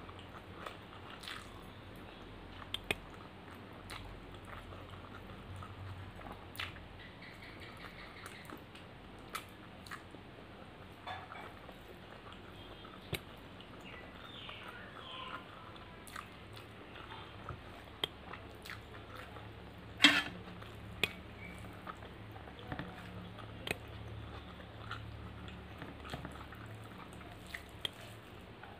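Chewing and mouth sounds of a person eating egg fried rice and mutton curry by hand. Scattered soft clicks and smacks sit over a low steady hum, with one sharper click about two-thirds of the way through.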